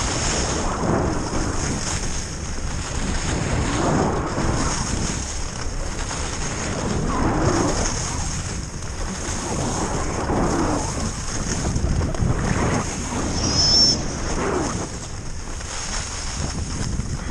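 Wind rushing over an action camera's microphone, with skis hissing and scraping on packed snow during a downhill run. The noise swells and fades every two to three seconds, and a brief high squeak comes about three-quarters of the way through.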